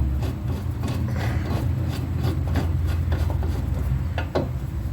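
Scattered light clicks and knocks of hand tools and metal parts being handled, over a steady low hum.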